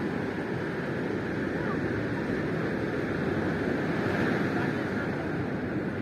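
Ocean surf: a steady rushing wash of waves that swells a little about four seconds in.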